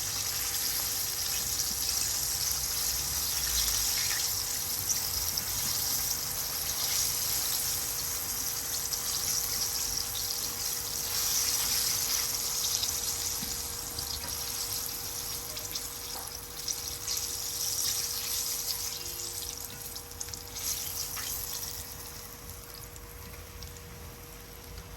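Chicken wings shallow-frying in hot oil in a pan, a steady sizzle that grows weaker over the second half.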